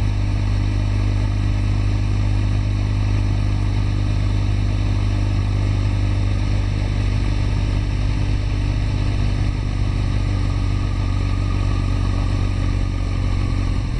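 Suzuki Hayabusa's inline-four engine running at steady, unchanging revs as the bike rolls slowly, with a constant low hum and a steady rush of road noise.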